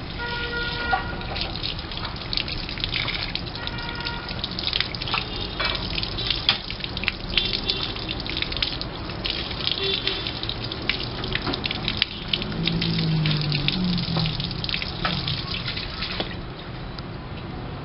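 Running water pouring and splashing over a Chinese water dragon and the hand it sits on, with many small splashes and drips. The flow eases off about sixteen seconds in, leaving a fainter wash.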